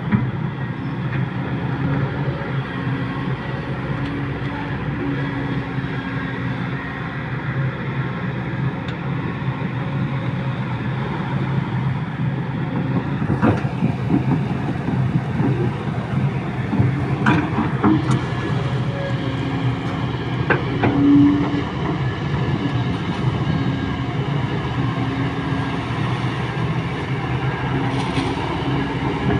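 Kobelco SK200 hydraulic excavator working, its diesel engine running steadily under load with a note that comes and goes as the boom and bucket move. A few sharp knocks come in the second half.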